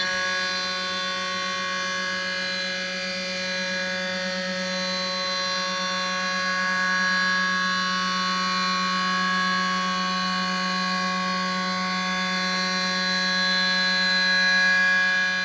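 CNC router spindle driving a roughing end mill through aluminium plate: a steady, high-pitched whine of the cut, held at one pitch throughout.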